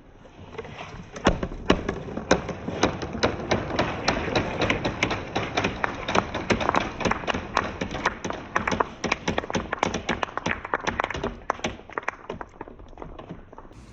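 Many marbles clattering down a wooden marble run: a dense, irregular stream of clicks and knocks that starts about a second in and thins out near the end.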